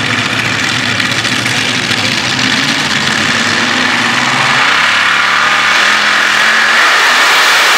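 Modified-class pulling tractor's engines running under load as the tractor starts its pull. The sound grows steadily louder, its low rumble giving way to a higher rushing whine in the second half.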